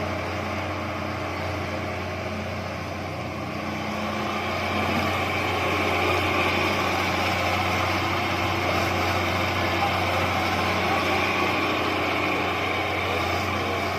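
Diesel engine of a John Deere 160 excavator running steadily. It gets louder about four to five seconds in and stays up.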